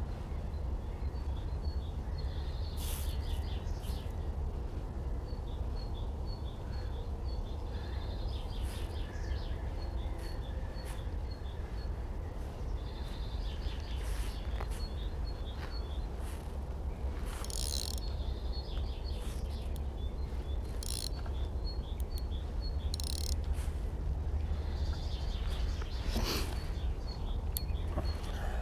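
Spring dawn birdsong: several birds chirping, one repeating a short high note in quick runs again and again. Beneath it runs a steady low rumble.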